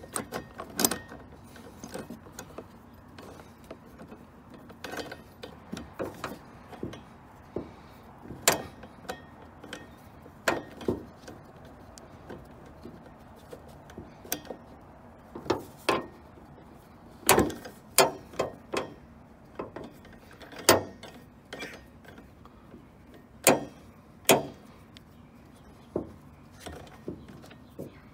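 Irregular metallic clicks and clinks of a wiper arm puller being fitted and worked on a windshield wiper arm's pivot, as the steel arm is freed from its spindle.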